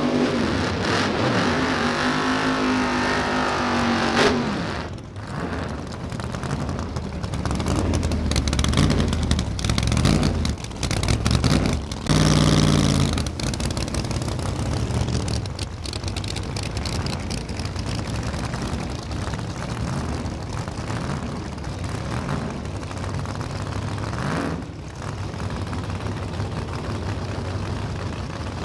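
Nitrous-fed drag radial race car engine revving and running hard, its pitch swinging up and down for the first few seconds, with a sharp crack about four seconds in and loud surges later.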